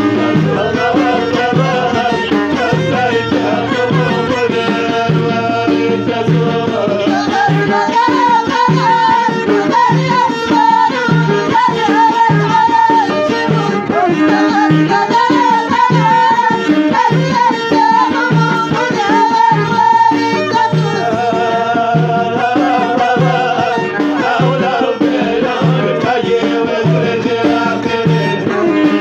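Moroccan Middle Atlas folk music: a melody that bends in pitch over a steady, regular drum beat.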